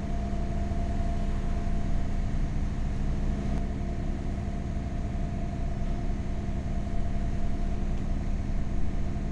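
A trawler yacht's twin inboard engines running steadily under way, an even drone with a constant hum.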